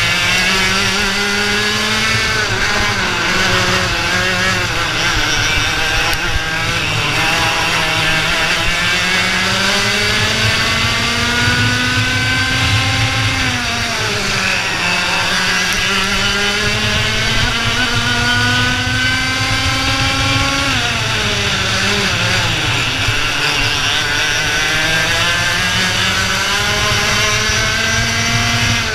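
IAME Leopard 125 cc two-stroke kart engine running hard under racing load. The pitch climbs slowly along the straights and falls sharply twice, about halfway through and again about two-thirds of the way in, as the driver lifts off for corners before it climbs again.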